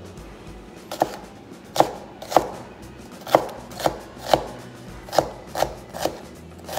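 Chef's knife dicing jalapeño on a plastic cutting board: about ten separate knocks of the blade on the board, unevenly spaced.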